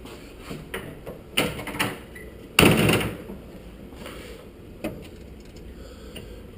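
Toyota FJ40 hard door being worked on its new quick-release hinges: a few light knocks and clicks, then one loud clunk about two and a half seconds in, and a lighter knock near five seconds.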